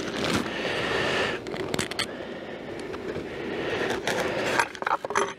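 Continuous rustling and scraping: a plastic bag and a polystyrene foam insulating panel being handled on a wooden hive lid, with many short scratchy strokes.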